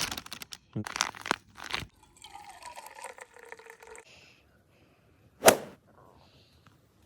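Food packaging being handled: rustling and crinkling of plastic wrappers, then a single sharp crack about five and a half seconds in.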